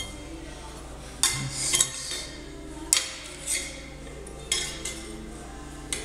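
Small bent sheet-metal parts clinking and clattering against a steel workbench as they are handled and set down: several separate sharp metallic knocks with a bright ring.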